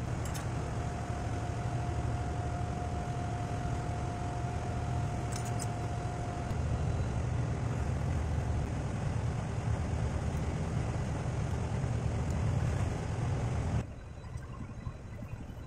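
Steady low drone of running machinery in the background, with a faint steady whine for the first several seconds and a couple of sharp clicks as hand tools work on the pump. The drone drops suddenly in level near the end.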